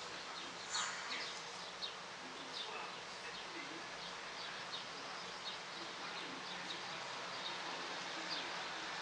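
Small birds chirping faintly in the background, a scatter of short, high, falling chirps over a steady outdoor hiss.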